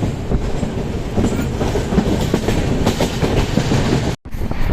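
Passenger train running at speed, its wheels clattering on the rails in a steady rush of noise. The sound drops out abruptly for a moment near the end.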